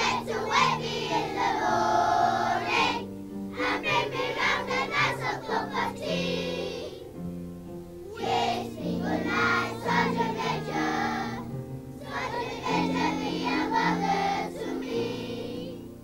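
Children's choir singing a song in phrases with short breaks between, over a steady piano accompaniment; it fades out at the very end.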